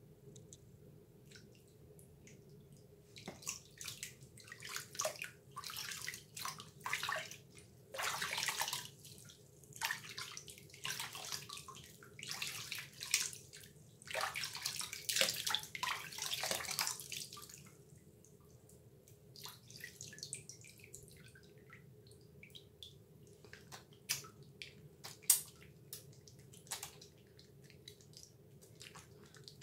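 Hands splashing and scooping water in a filled bathroom sink, in quick bursts from a few seconds in until about two-thirds of the way through. After that come quieter, scattered wet squishes as a bar of Dove soap is rubbed between wet hands. A faint low hum runs underneath.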